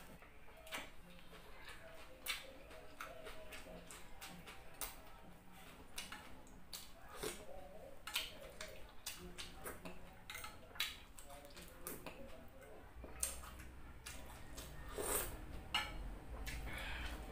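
Close-up chewing and mouth sounds of a person eating fried pork wrapped in lettuce: irregular sharp clicks and crunches, with a low rumble joining about three quarters of the way through.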